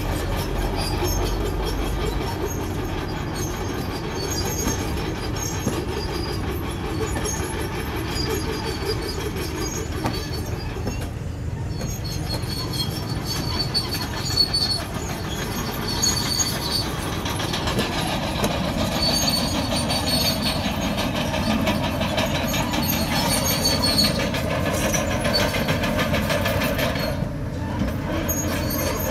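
Komatsu crawler bulldozer at work: the diesel engine runs under the clanking of its steel tracks, with short high squeals coming and going from the track running gear.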